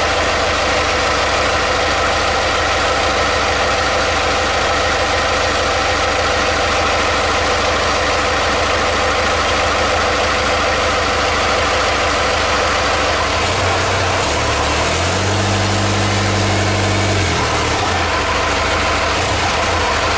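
Pickup truck's rebuilt engine idling steadily. About 13 seconds in it revs up, holds a higher speed for a few seconds, then drops back to idle.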